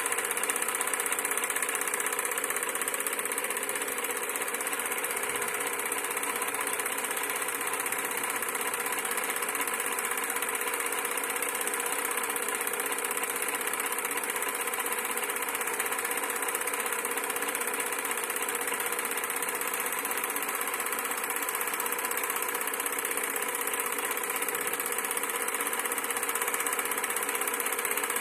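Canon cine projector running: its motor, cooling fan and film-advance mechanism give a steady, even mechanical whirr with a bright hiss on top.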